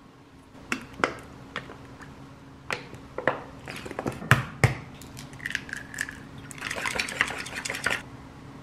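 Kitchen prep sounds: a string of sharp clicks and clinks of chopsticks and dishes against a ceramic bowl, then cooking oil poured from a plastic bottle into a frying pan, with a short gurgle and about a second and a half of crackling near the end.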